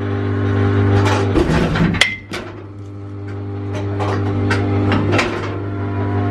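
Metal baseball bat striking a hardball in a batting cage: one sharp, ringing crack about two seconds in, with several lighter clanks and knocks before and after it. A steady mechanical hum runs underneath.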